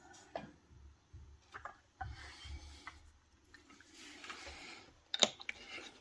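A metal Zippo lighter handled in the fingers: faint rubbing and scraping with a few light clicks, and one sharp click about five seconds in.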